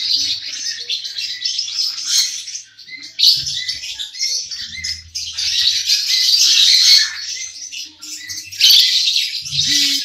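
Many caged parrots and parakeets chirping and squawking together in a dense, continuous chatter, with brief lulls about three seconds in and again near eight seconds.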